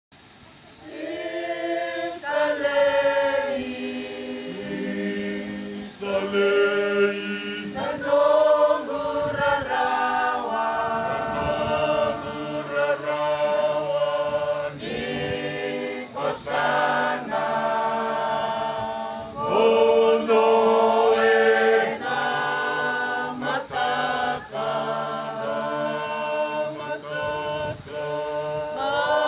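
Background music: a choir singing a cappella, several voices holding long notes together in harmony and moving from chord to chord.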